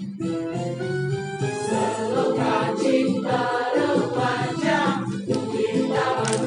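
Music with a choir singing long held notes.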